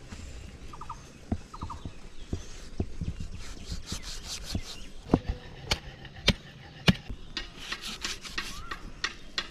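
Knife cutting and scraping meat off a pork head: rasping scrape strokes broken by several sharp knocks.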